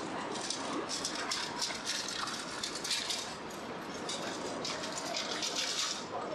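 Busy city street ambience: a steady rushing hiss with rapid crackling throughout and no single sound standing out.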